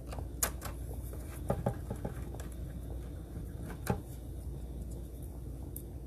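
Scattered light clicks and taps of a small screwdriver and plastic parts being handled on an iRobot Braava jet M6 robot mop's opened housing during reassembly, the sharpest click about four seconds in, over a steady low hum.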